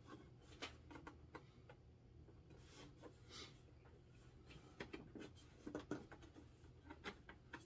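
Near silence with faint scattered light clicks and rubbing from hands handling a large plastic Razor Crest toy ship.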